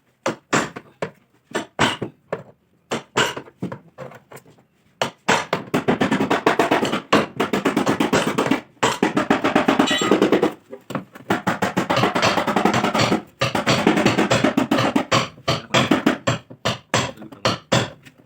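Hammer blows on a car's sheet-metal quarter panel during dent repair. For the first few seconds they come as separate strikes, then from about five seconds in as a fast, steady run of tapping with brief pauses.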